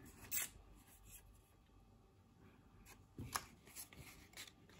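Faint rustling and a few light taps from sheets of patterned craft paper being handled and turned over.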